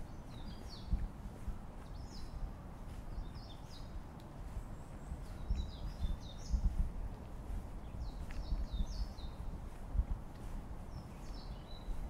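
Small songbirds chirping in short quick clusters of high notes every second or two. Under them run a steady low rumble and soft thumps of footsteps on a forest path.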